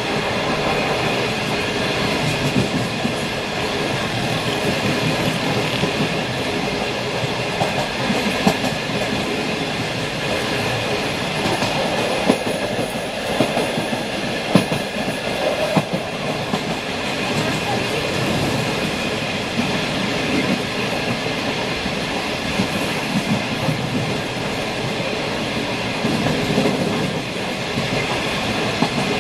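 A moving train heard from on board: the steady running noise of wheels on rails, with a few sharp clicks along the way.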